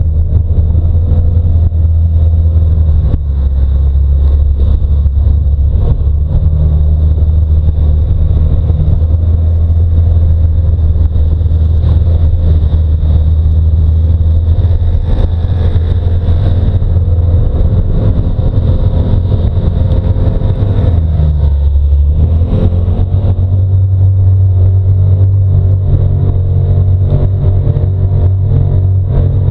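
Side-by-side UTV engine running steadily as it drives along a dirt trail. The engine note dips and then picks up again about two-thirds of the way through.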